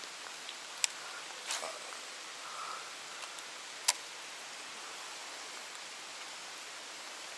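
Steady hiss of light rain falling on water and foliage, broken by two sharp clicks, one about a second in and one near four seconds.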